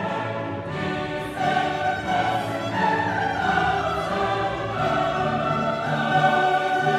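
Background music: a choir singing with an orchestra in a classical style.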